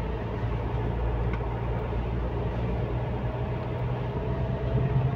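A car driving along a city road, heard from inside the cabin: a steady low drone of engine and tyre noise.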